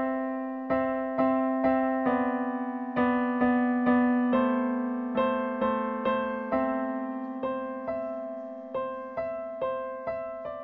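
Yamaha digital keyboard on a piano voice playing a slow melody: single notes struck about once or twice a second, each dying away, over a lower note that rings on underneath.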